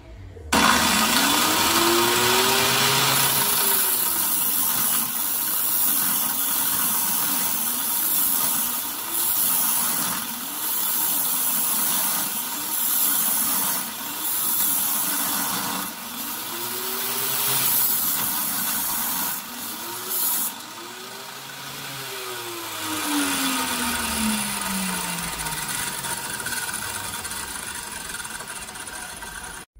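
Portable angle grinder with an abrasive cut-off disc, rigged as a chop saw, switched on and cutting into a metal shaft that turns in its bearing. The cutting noise swings up and down in pitch about once a second as the disc bites, and late on a whine falls steadily in pitch.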